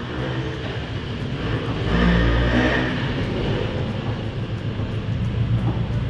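A car engine running steadily, getting louder about two seconds in and then easing back.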